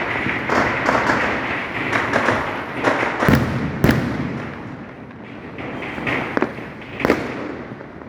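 Firecrackers and fireworks going off: a dense crackle that eases about halfway through, with sharp bangs scattered throughout. The two loudest come about three and four seconds in.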